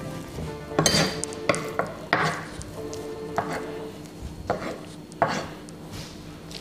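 Metal spoons scraping minced chicken off a wooden chopping board and into a ceramic bowl, with about half a dozen separate knocks and scrapes of the spoons on the wood and against the bowl.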